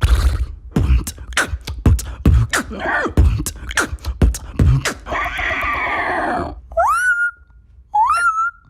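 Human beatboxing: a fast run of vocal kick and snare hits for about five seconds, then a held rough voiced sound, then two short rising whistles that level off into a steady note near the end.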